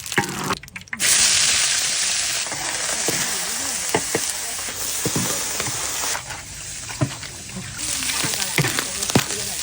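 Food sizzling in hot oil, starting suddenly about a second in, with scattered knocks of stirring in the pan.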